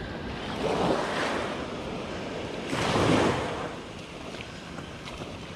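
Small waves washing up onto a sandy beach in two surges, the louder one about three seconds in, with some wind noise on the microphone.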